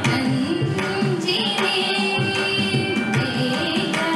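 Female voice singing a Carnatic keerthanam with a sliding, ornamented melody, accompanied by hand-drum strokes and a steady drone from an electronic tanpura.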